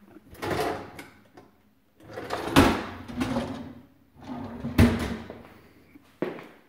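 Kitchen drawers sliding open and shut. There are three runs of rumbling from the runners, the second and third each ending in a sharp knock as the drawer hits its stop. A short click comes near the end.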